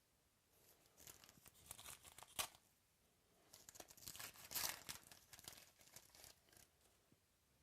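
Faint crinkling and crackling of a trading-card foil pack being handled, in two spells with a sharp snap between them.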